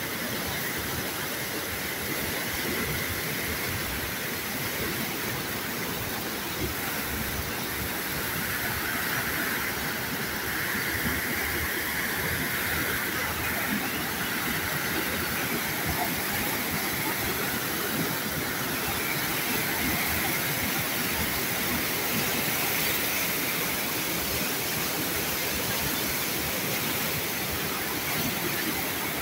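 Fast, turbulent whitewater rushing and churning through a concrete channel: a steady, unbroken rush of water.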